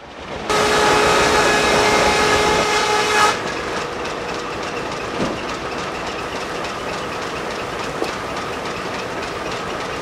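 Steam-powered sawmill machinery running with a steady hiss and hum and a few held tones. About three seconds in it cuts to a quieter, steady steam hiss of the boiler room.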